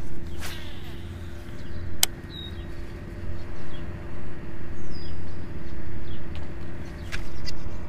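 Outdoor pond-side background: a low, uneven rumble with a faint steady hum under it. Two sharp clicks come early on the first two seconds, and a few short bird chirps are heard.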